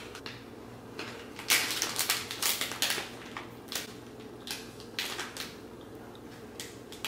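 A snack package crinkling as it is handled, in short irregular crackly bursts that come in clusters. A steady low hum runs underneath.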